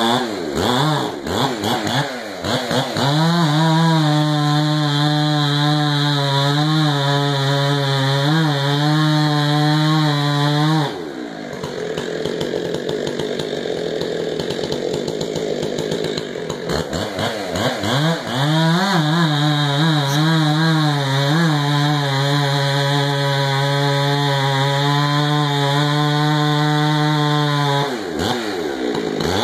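Two-stroke chainsaw revving up about three seconds in and held at high revs. It drops to a lower, rougher sound for about six seconds in the middle, then revs up again and holds before easing off near the end.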